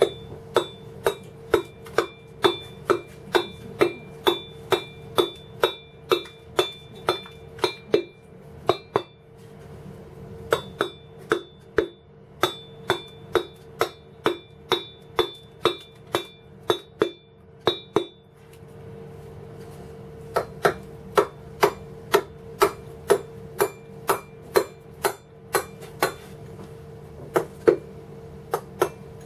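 A wooden mallet strikes a cold steel chisel into stone in a steady rhythm of about two blows a second. Many blows carry a brief metallic ring from the chisel. The strikes pause twice for a second or two, over a steady low hum.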